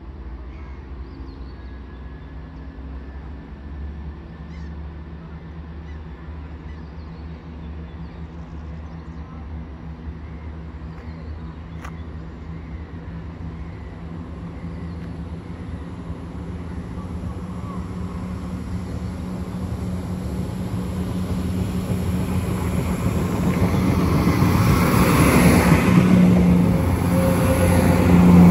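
Diesel multiple-unit engines, a Class 170 and a Class 158, running at the platform with a steady low drone that grows louder over the second half and peaks near the end.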